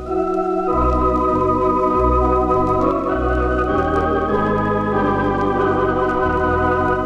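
Organ music from a vinyl record: held chords that change every second or few, over a bass line striking a note about every second.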